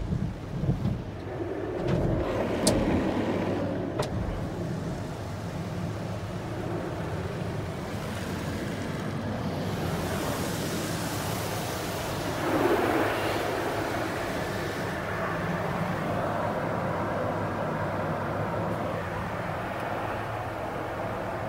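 Automatic tunnel car wash heard from inside the car, with a steady rumble of wash machinery. Foam brushes thump against the body a few times in the first few seconds, and a louder hiss comes from about ten to fifteen seconds in.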